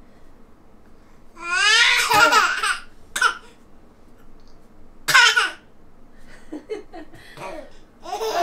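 A nine-month-old baby laughing in several loud, high-pitched bursts, the longest about one and a half seconds in.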